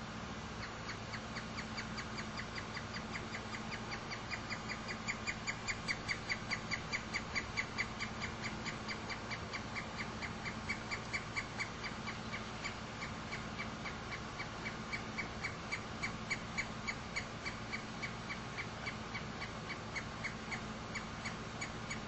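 Pileated woodpecker calling: a long series of clear, evenly repeated notes, about four a second. The series starts about a second in and keeps going, growing louder and softer by turns.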